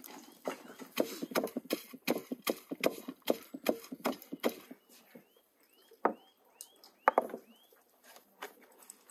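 Knife chopping on a wooden cutting board: quick, irregular knocks for about four seconds, then a few scattered knocks. Short high chirps sound over the sparser second half.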